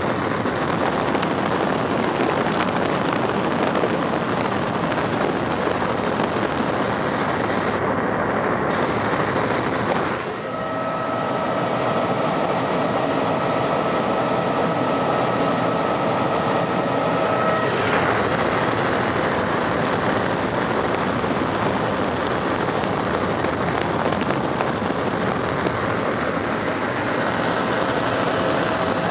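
Helicopter engine and rotor noise heard from inside the cabin in flight: a loud, steady rushing din with a steady high whine running through it. There is a brief dip in level about ten seconds in.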